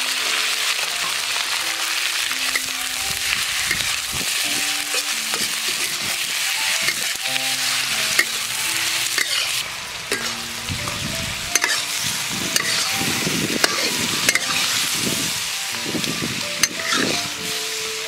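Chopped quail pieces sizzling loudly in hot oil in a wok, then stir-fried with a metal spatula. The spatula scrapes and clicks against the wok, more often in the second half, while the sizzle eases slightly.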